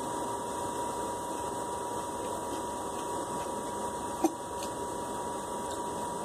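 Steady hiss with a thin, high, constant whine, with one sharp click about four seconds in.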